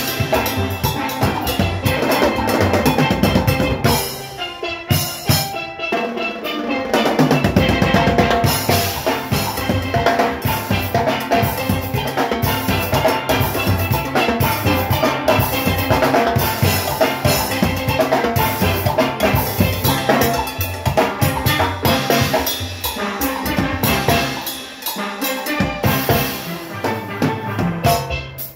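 A steel orchestra playing live: steel pans carry the tune over its engine room of drum kit and metal percussion. The drums thin out for a few seconds about four seconds in, then come back in full.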